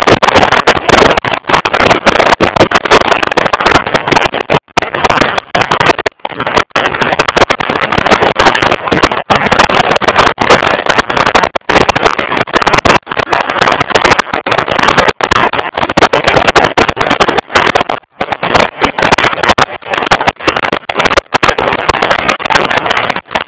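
Wind rushing over the microphone of a camera on a motorcycle moving at road speed, loud and distorted, with the sound cutting out briefly many times.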